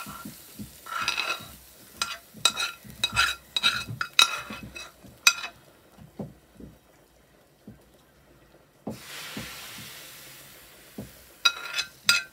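Metal spoon scraping fried onion and carrot out of a frying pan into a soup pot: a quick run of ringing metal clinks and knocks on the pan, a pause, a brief hiss, then a few more sharp clinks near the end.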